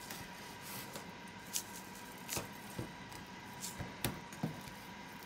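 Faint handling sounds of hands pressing and patting dry rub onto a raw beef rib roast on a plate, with a few scattered light taps and clicks.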